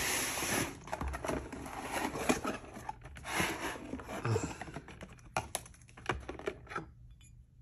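Cardboard product box and plastic air-pillow packing being handled and opened: rustling and crinkling with many sharp clicks and taps, loudest in the first second, thinning to scattered taps near the end.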